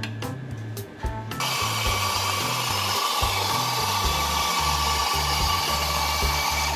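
Espresso grinder running, grinding coffee beans into a portafilter. It starts about a second and a half in as a steady whir, over background music.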